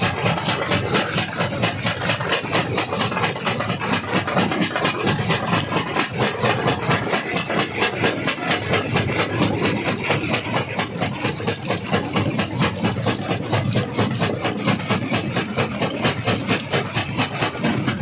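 Stone crusher running with rock being crushed: a continuous heavy mechanical grinding with a steady pulse about four times a second.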